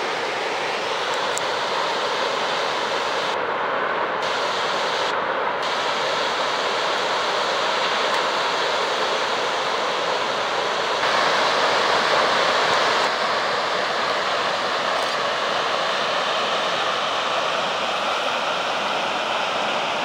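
Waterfall and its stream rushing: a steady, even noise, slightly louder for a couple of seconds a little past the middle.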